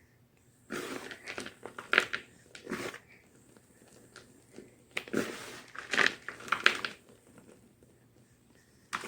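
Gym chalk being crushed, crackling and crunching in two clusters of crunches, one starting about a second in and one about five seconds in, with a brief crunch near the end.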